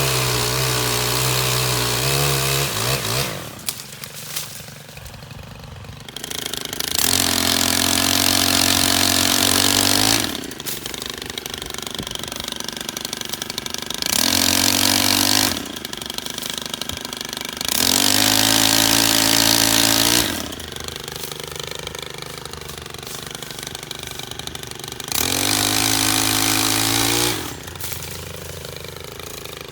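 STIHL KM 131R Kombi power head's 4-MIX engine driving a pole saw, revved to full throttle for a few seconds at a time, five times, and dropping back to idle in between.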